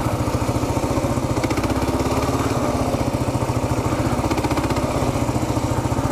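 Kawasaki KLR650's single-cylinder four-stroke engine running steadily with an even pulse as the bike rides along a dirt trail.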